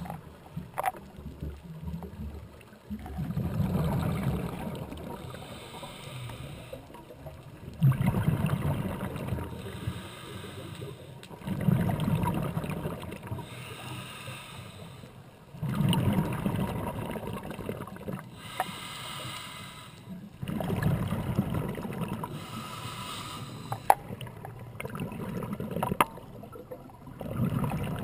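Scuba regulator breathing heard underwater: a low rush of exhaled bubbles about every four seconds, each fading away, with a fainter hiss of inhalation between them.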